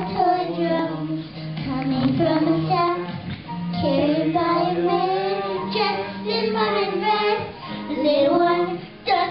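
Two young girls singing together into microphones, over a steady low instrumental accompaniment.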